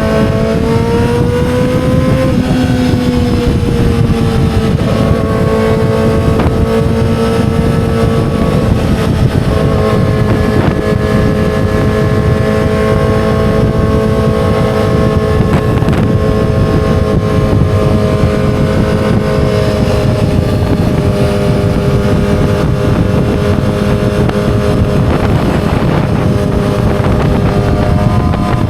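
A 2007 Yamaha R6's inline-four engine running loud under a steady rush of noise. Its pitch climbs in the first couple of seconds and eases back. It then holds mostly level, sags slightly about two-thirds of the way through and picks up again near the end.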